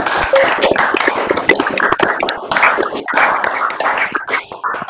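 Several people clapping over their open video-call microphones, the applause of many hands mixed together through the call's audio.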